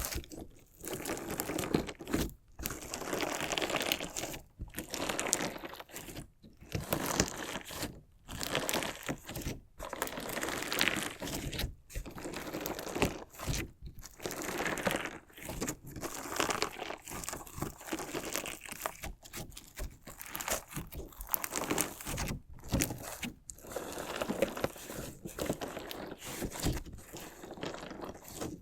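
Crunchy slime crackling and crunching as it is cut and pressed, in bursts about two seconds apart with brief pauses between.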